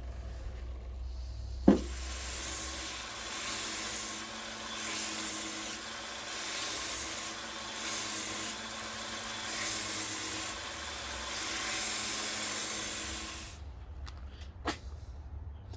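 A motor-driven wire wheel spins up and scrubs rust off a heavy-duty Bonney socket. Its steady hum sits under a harsh brushing hiss that swells and eases as the socket is pressed on and eased off. It stops suddenly with a couple of seconds left, followed by a single click.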